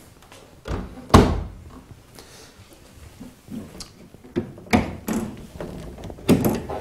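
Tumble dryer's door shut with a sharp thud about a second in, then several lighter plastic knocks and clicks from handling its panels.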